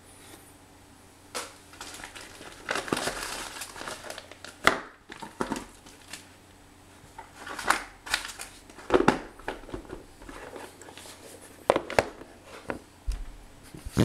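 Irregular crinkling and sharp clicks of plastic being handled, with a dozen or so separate clicks and a longer crinkling stretch about three seconds in.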